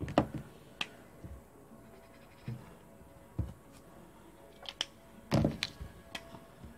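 Light knocks and clicks of small craft supplies being handled and set down on a tabletop, about eight scattered through, the loudest near the start and about five seconds in.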